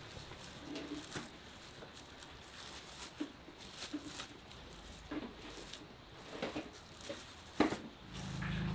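Thin plastic bags rustling and crinkling as gloved hands handle food in them, with scattered light ticks and taps. A low steady hum comes in near the end.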